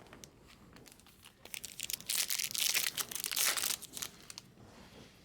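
Trading-card pack wrappers crinkling and rustling as they are handled, a crackly burst starting about a second and a half in and dying away near the end.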